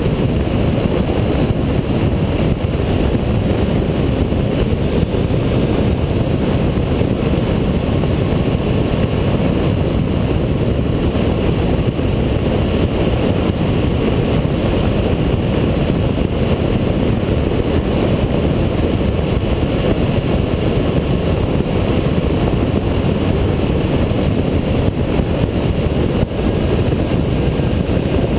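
Steady, loud wind rush and running noise of a Honda ST1300 motorcycle cruising at road speed, picked up by a camera mounted on the bike's fairing.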